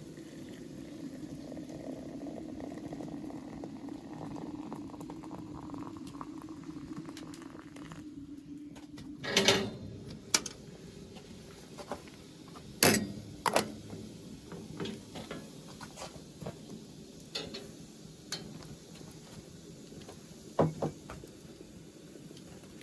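A pot of liquid bubbling steadily, then a scattering of sharp knocks and clinks of utensils or cookware, about eight in all, the loudest three coming about halfway through, a little later, and near the end.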